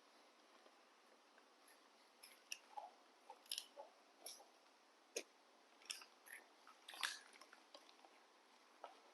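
Faint, irregular crunching and clicking of a crunchy snack treat being bitten and chewed, a dozen or so short crunches.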